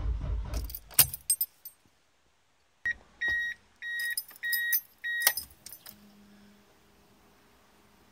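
Car keys jangling at the ignition of an R33 Skyline GT-R, with a run of about five short high electronic beeps between the jangles. A low rumble stops within the first second, and a brief faint hum follows about six seconds in.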